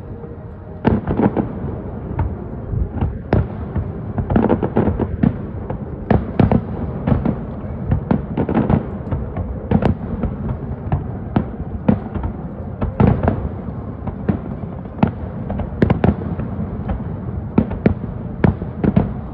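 Fireworks exploding: a continuous run of sharp bangs, often several in quick succession, over a low rumble.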